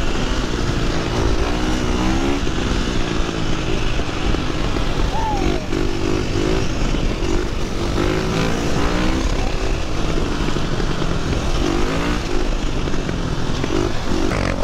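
Dirt bike engine heard from onboard while riding, revving up and easing off several times, with heavy wind rumble on the microphone.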